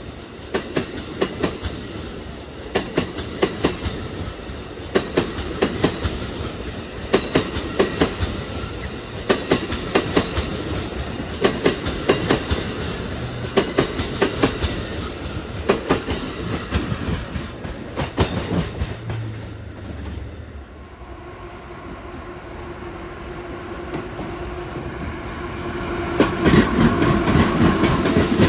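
Amtrak Amfleet passenger cars rolling past at restricted speed, their wheels clickety-clacking over the rail joints in regular groups about every two seconds. Near the end a steady electric hum from an ACS-64 electric locomotive grows loud.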